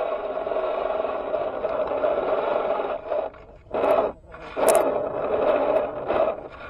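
Small electric motor and gearbox of a 1/6-scale RC Jeep crawler whining steadily, then cutting in and out in short bursts from about three seconds in as the throttle is pulsed while it crawls over tree roots. A brief sharp scrape comes about four and a half seconds in.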